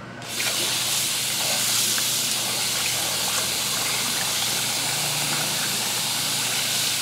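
Kitchen tap running in a steady stream into a glass bowl of water, while hands swish fresh coriander leaves in it to wash them.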